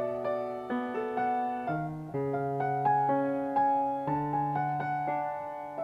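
Electric piano or keyboard playing a gentle instrumental introduction, chords changing every second or so.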